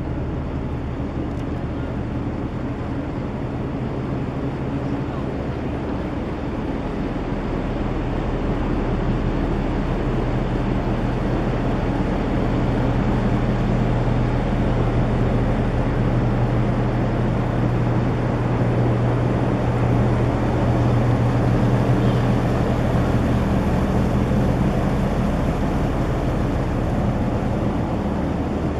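An offshore supply vessel's diesel machinery running with a steady low hum, growing a little louder about a third of the way in.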